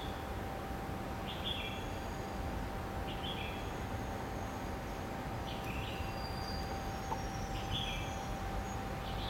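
A bird repeating a short, high two-part chirp about every two seconds over steady outdoor background noise.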